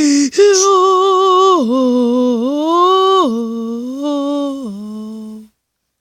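A voice humming a short tune in long held notes that drop and rise in steps, then stops abruptly about five and a half seconds in.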